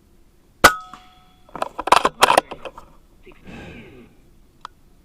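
An air rifle fires once, a sharp report with a brief ringing tone after it. A quick cluster of sharp clicks follows about a second later as the action is worked to chamber the next pellet from the magazine.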